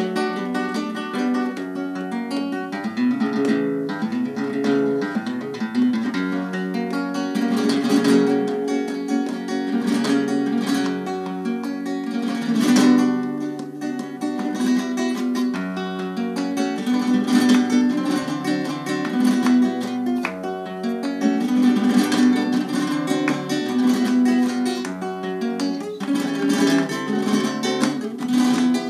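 Nylon-string acoustic guitar playing flamenco, with plucked runs and sharp strummed chords, accompanied by hand-clapping (palmas).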